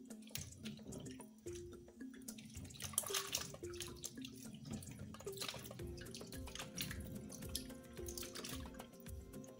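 Water sloshing and splashing in a bowl as cucumbers and green grapes are rubbed and stirred by hand, in irregular bursts that are loudest about three and five seconds in. Soft background music with a slow stepping melody plays underneath.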